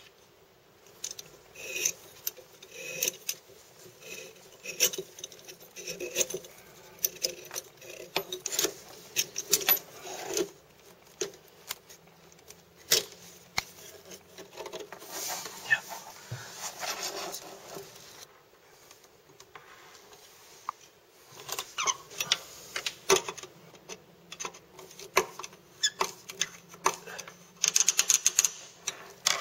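Metal fittings and braided steel hoses being handled against a ceramic washbasin: scattered clicks, taps and scrapes, with a quick metallic rattle near the end as the braided hoses are fed through the brass fitting.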